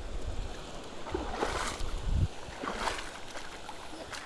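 Shallow sea water sloshing and splashing at the shoreline, swelling louder twice, with wind rumbling on the microphone.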